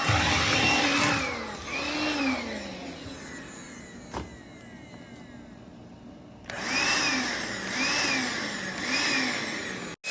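Makita 18V LXT compact cordless vacuum motor running, its whine repeatedly dipping and recovering in pitch as it works over the floor. About three seconds in it dies away, a single click sounds near four seconds, and the motor starts up again abruptly about six and a half seconds in.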